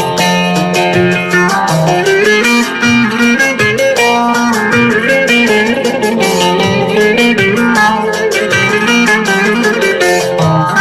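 Instrumental music without singing: a plucked string instrument plays the melody over a steady rhythmic beat.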